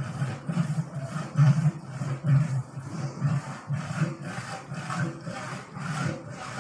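Long-handled ladle stirring thick khichuri in a large aluminium cooking pot, scraping and churning in a steady rhythm of about two strokes a second.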